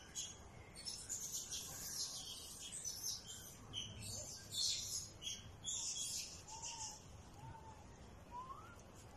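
Small birds chirping and twittering in quick, high-pitched bursts, then a few short, lower whistled calls about a second apart near the end.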